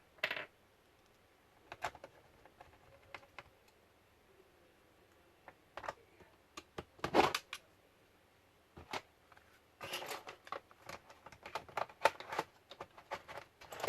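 Clicks, taps and knocks of the plastic parts of a Toshiba C55 laptop being handled and fitted back together, scattered at first, with a louder knock about halfway and a quick run of clicks near the end.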